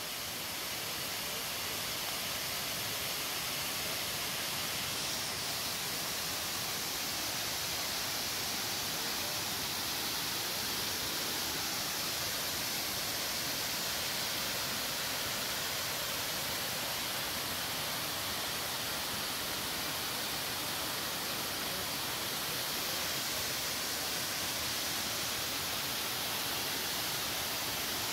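Waterfall cascading off a rock ledge: a steady hiss of falling water, with the flow running low.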